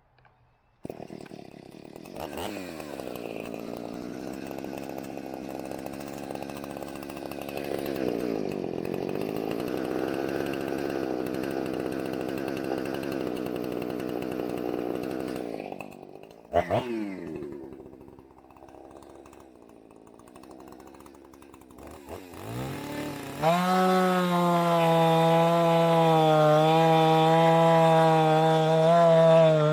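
Two-stroke chainsaw engine starting about a second in and running steadily. It gives one quick blip of the throttle past the halfway point and drops to a low idle, then is opened up to high speed and held there, loudest near the end.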